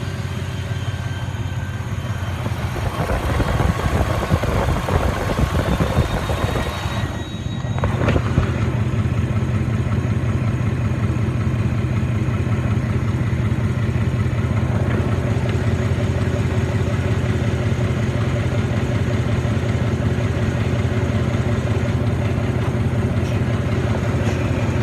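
1997 Ford 4.6-litre V8 engine idling with a ticking noise. The sound drops out briefly about seven seconds in, then runs on steadily.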